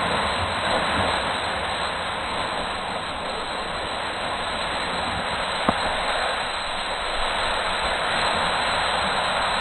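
Steady rushing hiss of skis sliding over packed snow on a downhill run, mixed with wind on the microphone, with one sharp click a little over halfway.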